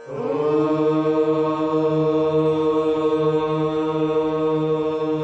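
Voices chanting a long 'Om' together on one held pitch. It starts abruptly with a slight upward slide into the note, then stays steady.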